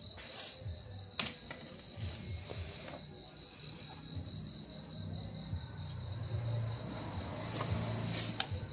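Crickets trilling steadily in a pulsing high-pitched chorus, with faint background music and a sharp click about a second in.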